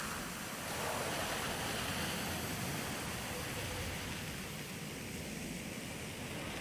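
Steady rushing hiss of escaping steam, even and without pitch or beat.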